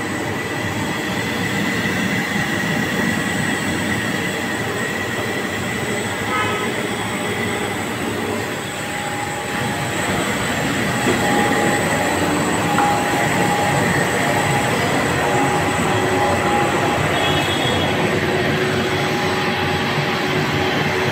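Blown-film extrusion line running: a steady mechanical rumble, with faint steady whines that come and go over it.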